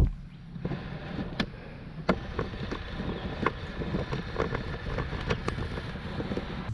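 Vehicle running with a steady low rumble, with a knock at the start and scattered light clicks and rattles.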